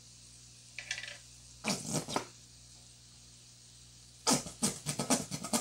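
Nearly empty plastic squeeze bottle of barbecue sauce sputtering as the last of the sauce is squeezed out: one short sputter about two seconds in, then a quick run of sharp sputters and taps near the end.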